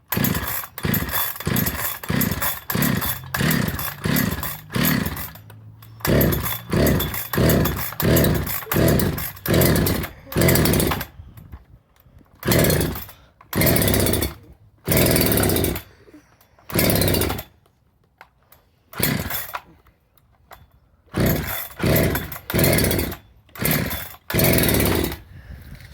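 Rebuilt Husqvarna 365 SP two-stroke chainsaw being pull-started over and over on choke. The engine cranks over in a short burst with each pull of the recoil starter but never keeps running. The owner suspects the ignition timing, because spark and compression are good.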